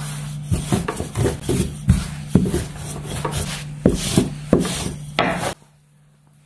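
Wooden rolling pin rolling out thin dough wrappers on a floured silicone mat: repeated knocks and rubbing strokes over a steady low hum. It all cuts off abruptly about five and a half seconds in.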